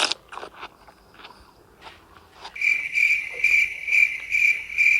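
Crunching bites and chewing of toasted bread with watermelon, a few sharp crunches in the first two seconds. Then, from about two and a half seconds in, a loud high insect-like chirping repeats about twice a second.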